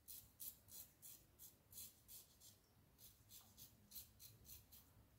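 Faint, quick scratching strokes of a Laugar skogsrå safety razor's blade cutting beard stubble, about three short strokes a second, with a short pause a little past the middle.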